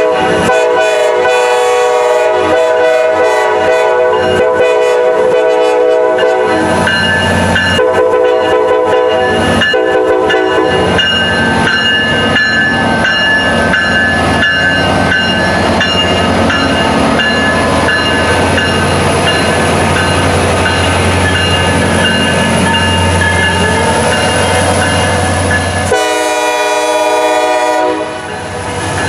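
Norfolk Southern EMD SD70ACE freight locomotive's air horn blowing a multi-note chord in long blasts: one for about the first six seconds, another from about eight to eleven seconds, and a short one near the end. Between the blasts comes the steady low rumble of the passing freight train with the click of its wheels over the rails.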